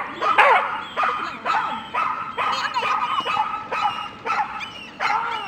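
A dog barking over and over in short, sharp, high yips, about two barks a second.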